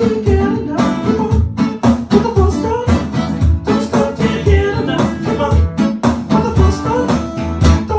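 Acoustic guitar strummed in a steady rhythm, with a man's voice singing into a handheld microphone.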